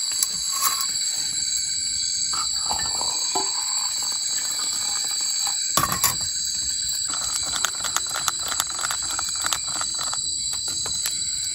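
Steady high-pitched shrilling of a forest insect chorus, two even tones that run on without a break. Over it come scattered sharp clicks and knocks, one louder pair about six seconds in and more frequent ones in the second half.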